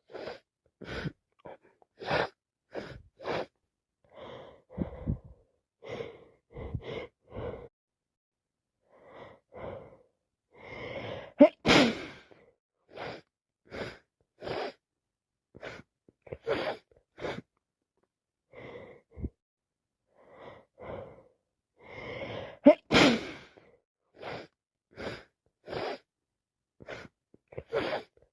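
A person with a head cold sneezing hard twice, each sneeze led in by a gasping inhale. Between the sneezes come many short sniffles and catching breaths, about one a second.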